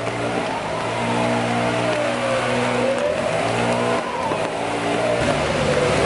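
Traffic on a rain-wet city street: steady engine hum and tyre hiss on the wet road. Over it a distant siren wails slowly up and down, rising and falling twice.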